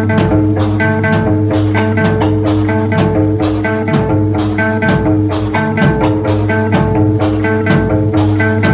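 Live rock band playing: a drum kit with cymbal hits about twice a second, electric guitar, and steady held notes underneath.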